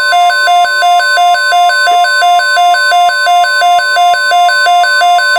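NOAA Weather Radio receiver sounding its alert alarm for an incoming tornado watch: a loud two-tone beeping that alternates a low and a high pitch about four times a second. Under it runs the steady 1050 Hz warning tone broadcast by the station.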